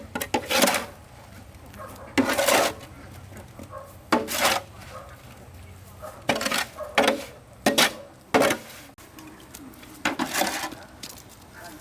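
An uneven series of about ten short, noisy scrapes, each lasting well under a second.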